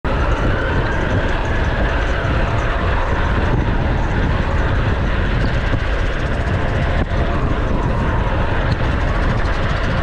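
Wind buffeting the microphone and road noise from an electric bike ridden along a city street, a steady loud rush with a heavy low rumble and a faint whine that drifts up and down in pitch.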